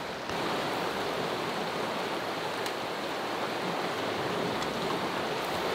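Fast-flowing river rushing over rocks and rapids, a steady rush of water that gets a little louder about a third of a second in.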